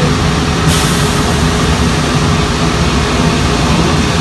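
Steady laundry machinery noise: a low rumble with a steady hum, and a hiss of blowing air or steam that comes in strongly just under a second in and holds.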